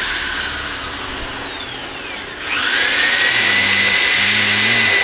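Handheld electric power tool motor whining. It winds down in pitch over the first two seconds or so, then speeds back up about halfway through to a steady high whine.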